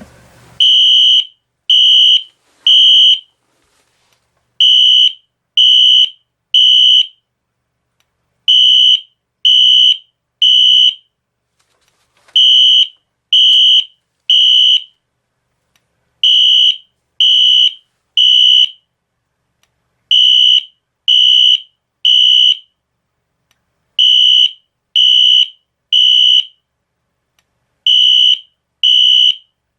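Wheelock NS-24MCW piezo horn sounding its temporal code 3 alarm pattern: three short, steady, high-pitched beeps, then a pause, the group repeating about every four seconds.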